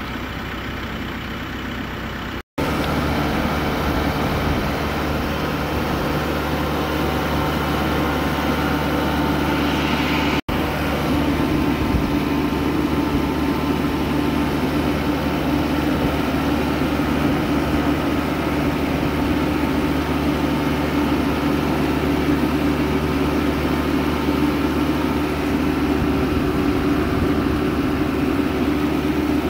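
Diesel tractor engines running steadily at working speed, one of them pulling a plastic-mulch bed shaper. The sound cuts out briefly twice, about two and a half and ten seconds in, and is louder after the first gap.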